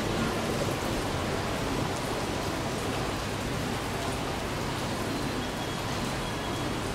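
Heavy rain falling steadily as a dense, even hiss, with a low steady hum underneath.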